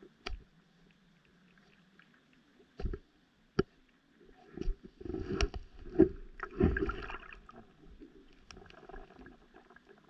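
Underwater sound from a camera resting in a seagrass bed: scattered sharp clicks and knocks, with a dense cluster of crackling thumps in the middle.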